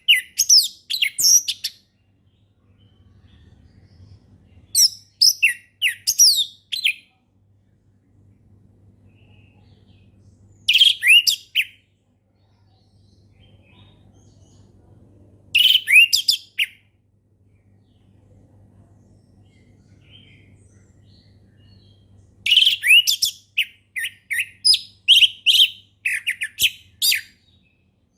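Orange-headed thrush singing: five phrases of rapid, varied, sliding whistled notes, separated by pauses of a few seconds, the last phrase the longest.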